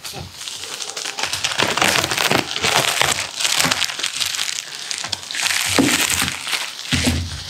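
Clear plastic shrink-wrap being peeled off a cardboard laptop box and crumpled by hand: a dense, continuous crinkling and crackling. A short low thump near the end.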